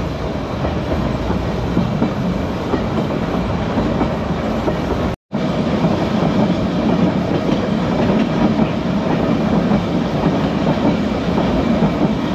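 Manx Electric Railway tramcar running along the line, a steady rumble with wheels clattering over the rail joints and wind on the microphone. The sound cuts out for an instant about five seconds in.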